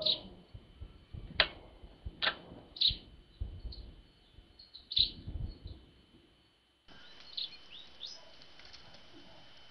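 Tits calling with short, high chirps, scattered about a second apart. About seven seconds in a faint steady hiss sets in, with a few softer chirps over it.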